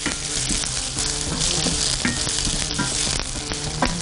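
Zucchini slices and pieces of breaded chicken sizzling in oil in a nonstick frying pan, stirred and scraped with a wooden spatula.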